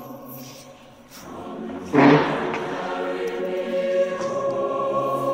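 Choral music with sustained, held chords. It swells abruptly about two seconds in and carries on fuller and louder.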